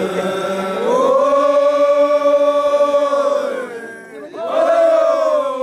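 Traditional Samburu group chant: several voices singing together in long held notes, one sustained phrase and then, after a short dip about four seconds in, a second.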